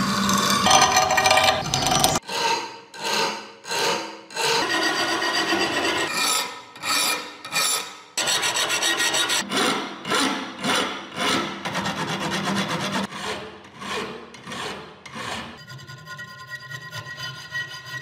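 A hand file scraping back and forth across the rusty, pitted steel blade of an antique kukri, in quick repeated strokes about two a second. Near the end the scraping turns thinner and quieter.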